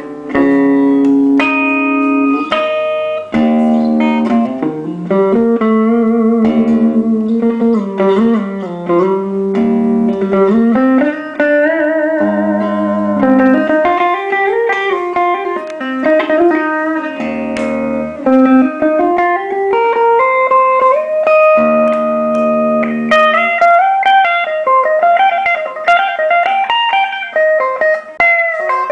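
Ibanez PGM-style electric guitar playing a melodic lead line of single notes, with string bends, slides and vibrato on sustained notes.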